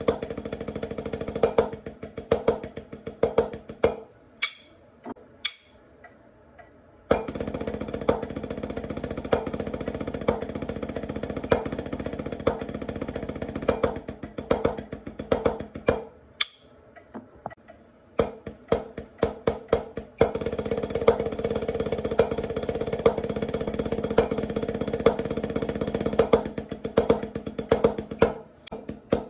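Snare drum played as a tap-roll exercise: stretches of fast, even rolled strokes with regular louder accents, broken twice by short pauses that hold only a few single sharp strokes.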